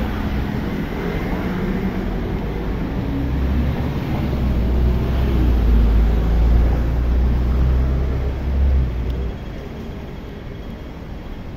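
Road traffic passing close by: the engines and tyres of cars going past. A deep rumble builds to its loudest around the middle as cars pass, then drops off about nine seconds in.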